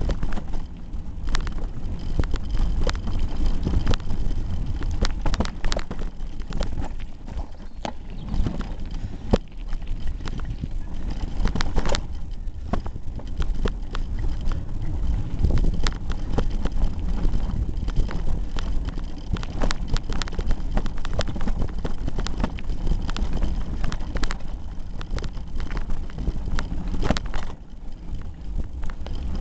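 Hardtail mountain bike rattling and clattering over a rough gravel trail, heard through a camera taped to the handlebars: a constant low rumble with dense, irregular knocks and clicks from the bike and bars. Wind buffets the microphone.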